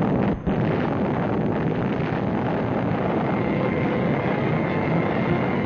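Roar of an atomic test explosion, a dense, steady rumbling noise that begins abruptly just before and holds at a high level, with one brief dip about half a second in.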